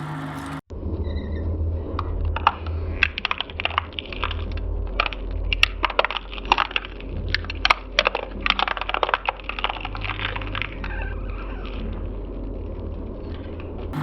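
Shredder motor running with a steady low hum while a plastic doll is chewed up, giving many sharp cracks and snaps of breaking plastic from about two seconds in to about eleven seconds. After that the motor runs on with only a few cracks.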